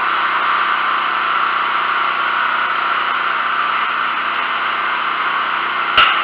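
Brand-new Sportsman 4000-watt four-stroke propane generator running steadily on its first run, lightly loaded by a plugged-in box fan whose whir mixes with the engine. A single sharp knock about six seconds in.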